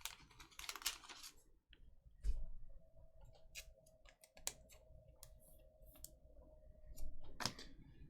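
Faint clicks and rustles of trading cards being handled, with a soft thump about two seconds in and a louder rustle near the end.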